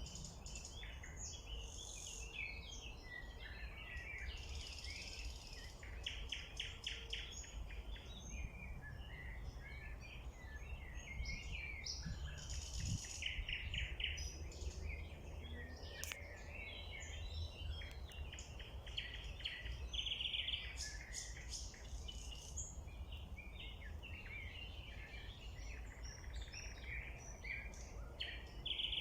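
Several songbirds singing at once in a spring chorus, with overlapping trills and chirps throughout, over a steady low rumble.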